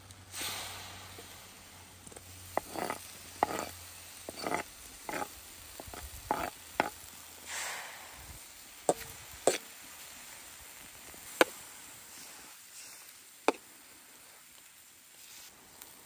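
Cubes of raw fatty meat sizzling as they hit a smoking hot black steel wok-shaped pan over a campfire, with a knife scraping and tapping as the pieces are pushed off a wooden board and moved around. In the second half a few sharp metal clicks of the knife against the pan stand out over the steady sizzle.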